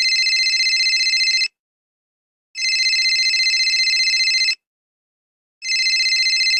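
Telephone ringing with a warbling electronic trill: rings about two seconds long with about a second's gap between them, three in all.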